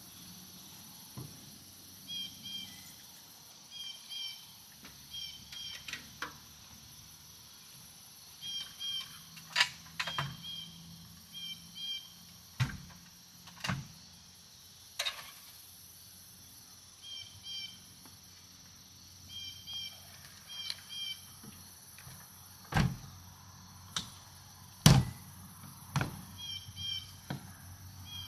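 Gear being handled and loaded in a pickup truck bed: scattered knocks and thuds, the loudest near the end as the tailgate and topper hatch are shut. A small bird chirps over it in short repeated pairs.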